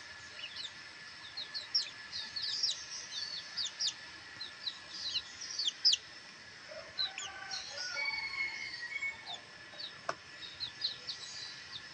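Black bantam chicks peeping in many short, high chirps, with a hen's lower clucking calls from about seven to nine seconds in. A single sharp click comes about ten seconds in.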